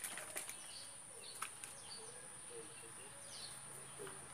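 Outdoor ambience: a steady high-pitched insect drone with short, repeated bird chirps, and a few light clicks of PVC pipe and fittings being handled.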